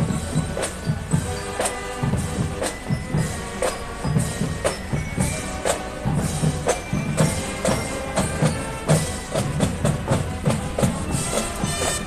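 A parade marching band playing: drums beating a steady, repeated rhythm, with a pitched melody over them.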